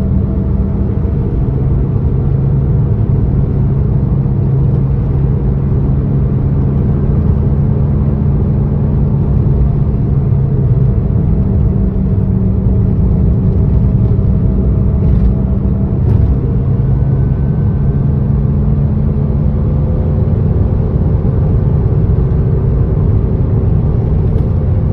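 2010 Renault Sandero 1.6 8-valve four-cylinder car at road speed, with a loud, steady droning hum throughout. This is the very loud drone ("roncando muito alto") that sets in from third gear up once the car passes 80 km/h.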